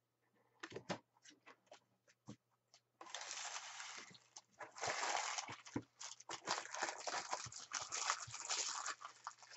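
A few light clicks and taps of trading cards being handled and laid on a pile. About three seconds in, a continuous crinkling and crackling starts, the rustle of foil card-pack wrappers.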